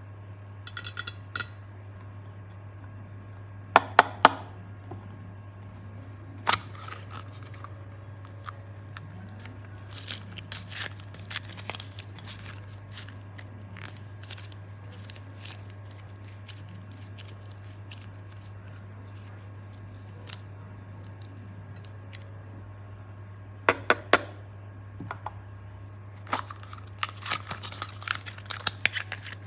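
Hands handling craft materials, making scattered sharp clicks and short crinkling and tearing sounds that come in clusters, over a steady low hum.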